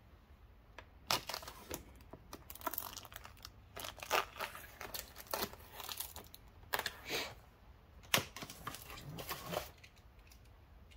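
Packaging of a boxed party-popper assortment being cut open with a knife and torn, with irregular crinkling and tearing from about a second in.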